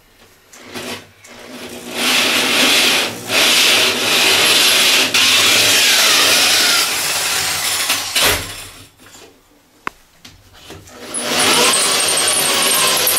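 Cordless drill driving a hole saw through cement backer board, a loud gritty cutting noise that builds over the first two seconds and stops about eight seconds in when the hole is through. The drill starts cutting again near the end.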